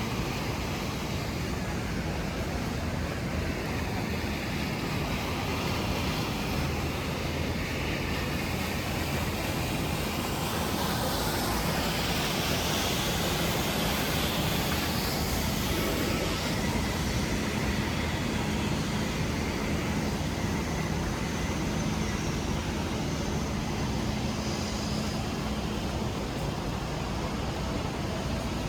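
Steady outdoor city ambience: a low engine drone over an even hiss, swelling for a few seconds around the middle and then easing back.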